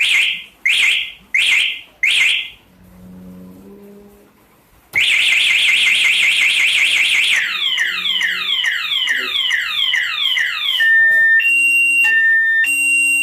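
Aftermarket motorcycle anti-theft alarm sounding: four short, loud chirps in quick succession, a pause of a couple of seconds, then the siren starts about five seconds in. The siren steps through its tones: a fast warble, then a run of falling whoops, then a high-low two-tone alternation.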